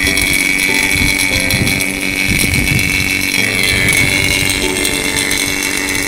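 A motor-driven machine running steadily, a hum with a high whine over it, with a few light handling knocks in the first half.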